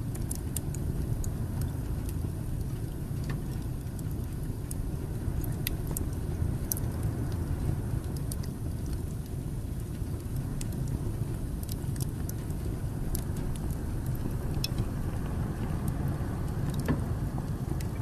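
Wood fire burning in an open fireplace: a steady low rumble from the flames, with scattered sharp crackles and pops from the burning logs.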